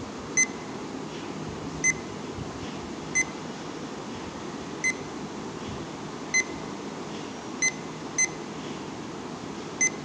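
Digital timer giving a short, high beep at each button press, eight beeps at uneven intervals.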